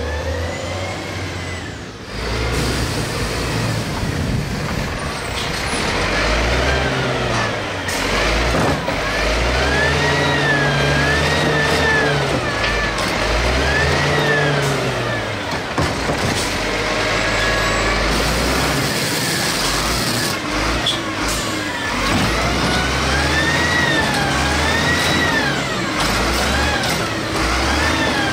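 Mini Rapid Rail side-loading garbage truck's engine revved up and down in neutral, several times over, each rev a rise and fall of a second or two with the engine running between them.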